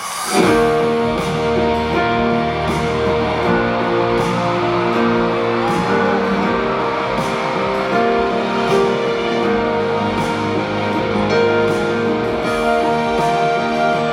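Rock band playing live, with electric guitar and drums, coming in suddenly about half a second in and carrying on at a steady beat.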